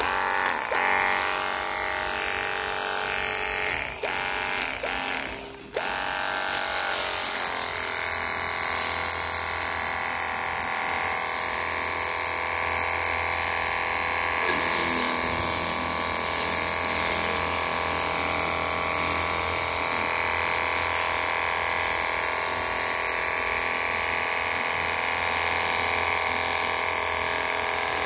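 Cordless battery-powered pressure washer running, its motor and pump giving a steady whine while the water jet hisses against a tyre and the vehicle's underside. The motor sound dips briefly twice in the first six seconds, then runs evenly.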